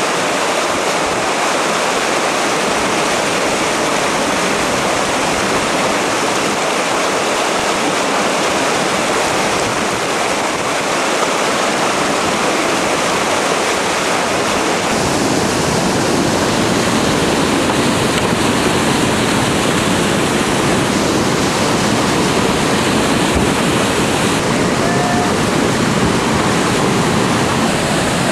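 Whitewater rushing over rock ledges and waterfalls, a loud steady noise that gets deeper about halfway through.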